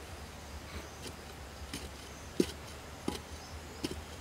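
A metal digging bar jabbing into soil: three dull thuds about 0.7 s apart in the second half, the first the loudest, with faint ticks between.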